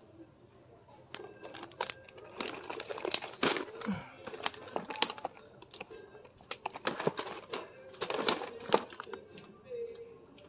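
Plastic cereal bag crinkling and a cardboard cereal box knocking as they are handled and set down in a plastic shopping cart. It is a run of irregular rustles and sharp clicks from about a second in until near the end.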